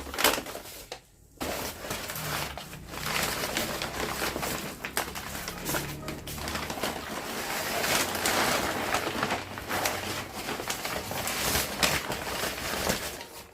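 Mangoes being handled and put back into a paper-lined basket: irregular rustling of paper with soft knocks as the fruit is moved.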